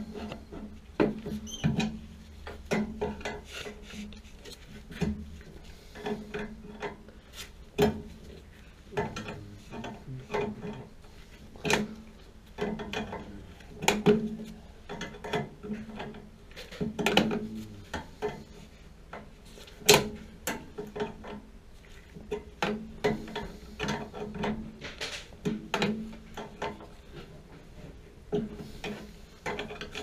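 Metal tools clinking, knocking and scraping against the fittings of a Honeywell water-heater gas control valve, worked on by hand: irregular sharp clicks and rubs, the loudest about twenty seconds in.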